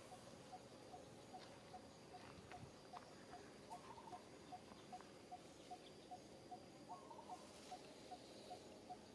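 Faint outdoor background of small animal calls: a steady run of short pips, about two or three a second, and a brief warbling call twice, about four and seven seconds in.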